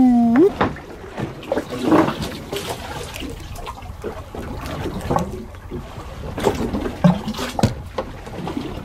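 Sea water splashing and lapping against the side of a small fishing boat, with a few sharp clicks and slaps as small fish on a sabiki rig are handled.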